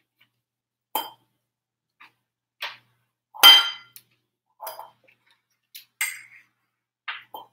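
Metal cutlery clinking against dishes: a string of short clinks and clicks, the loudest a ringing clink about halfway through.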